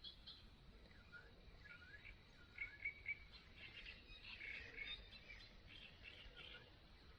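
Faint birdsong: a few birds chirping and calling in short notes, briefly louder in the middle.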